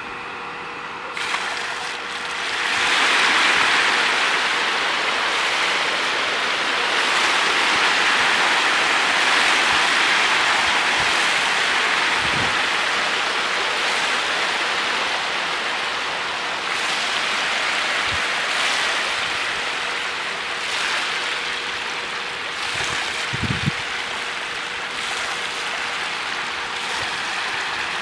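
A dense mass of small catfish churning and splashing at the pond surface in a feeding frenzy as feed is scattered onto the water. The splashing is continuous and swells about two to three seconds in.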